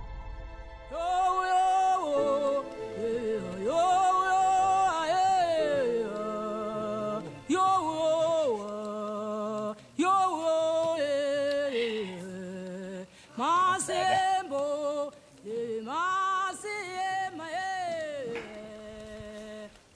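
A single voice singing a slow melody in phrases, with held notes wavering in vibrato and sliding up and down between pitches, and short pauses between the phrases.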